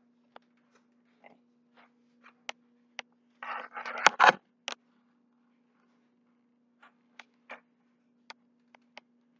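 Light clicks and taps of a hand-held camera being moved about, with a louder scuffle between about three and a half and four and a half seconds in as feet step onto a glass digital bathroom scale. A faint steady hum runs underneath.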